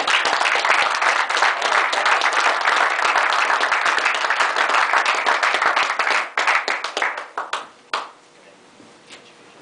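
Applause: many hands clapping, starting all at once, thinning to a few separate claps after about six seconds and stopping about eight seconds in.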